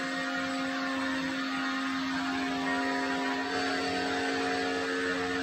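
Agaro Royal 1800-watt high-pressure washer running, its electric motor and pump giving a steady hum under the hiss of the water jet spraying the motorcycle. The hum's pitch shifts slightly about three and a half seconds in.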